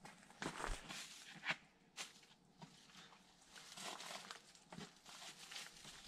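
Quiet, irregular footsteps and shoe scuffs on rock, with light rustling of clothing or gear.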